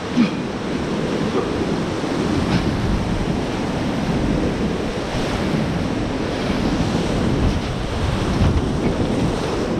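Whitewater rapid rushing around a boat running through it: a steady, dense rush of churning water with waves breaking against the hull.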